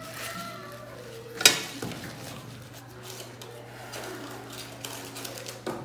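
A single sharp clink of a steel podiatry instrument, the nail nipper, about one and a half seconds in, over a low steady hum that stops near the end.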